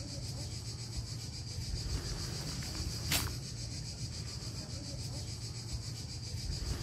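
Steady high-pitched chirring of insects in the overgrown vegetation, over a low rumble. A brief swish about three seconds in.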